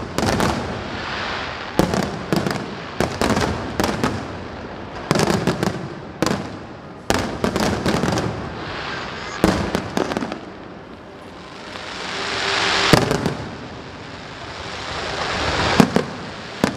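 Fireworks display: aerial shells bursting in rapid succession, several sharp bangs a second over continuous crackling. In the second half the noise swells up twice, each swell ending in a loud bang.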